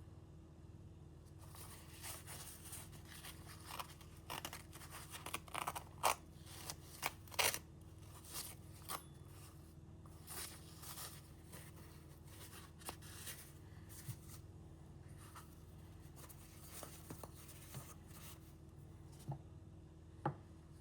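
Knife blade scraping in a run of short, irregular strokes while being sharpened, thinning out to a few scattered clicks and taps near the end, over a low steady hum.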